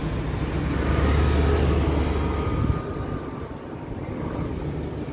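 A motor vehicle's engine running close by, loudest for the first three seconds and then fading away, over a steady rushing noise.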